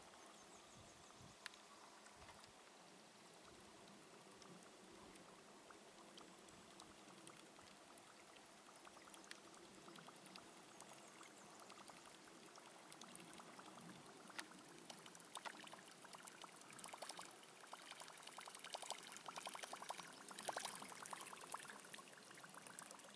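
Faint water gurgling and rapid ticking from a Whopper Flopper topwater lure as it is reeled across the surface, its spinning tail plopping and churning the water. It grows denser and louder in the last several seconds as the lure nears the boat.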